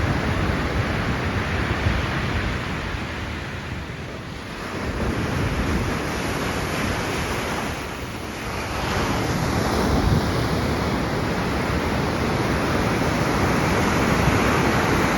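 Ocean surf breaking on a beach after a hurricane, a steady rush that eases twice and builds again, with wind on the microphone.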